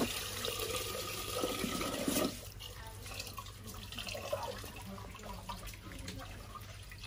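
Tap water running into a clay pot of rice while the rice is washed by hand; the flow is louder for about the first two seconds, then runs softer.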